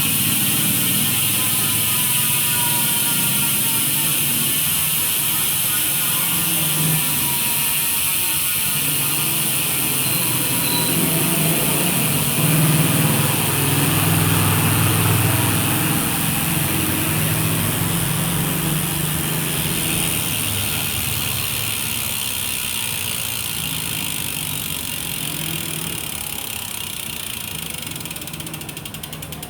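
Speed One Soldier bicycle rear hub freewheeling, its freehub pawls clicking so fast they run together into a continuous buzz. The buzz grows quieter over the second half as the wheel slows.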